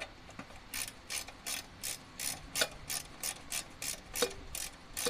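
Hand ratchet wrench clicking in quick, even strokes, about three a second, as bolts are run down snug but not tightened.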